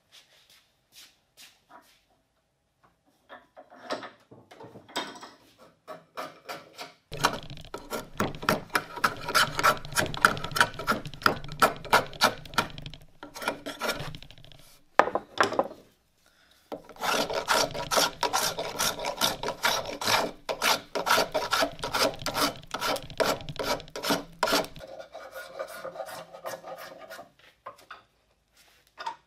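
Wood rasp shaping a walnut shotgun stock in fast back-and-forth scraping strokes. A few light strokes come first, then two long vigorous runs with a short pause between them, and softer strokes near the end.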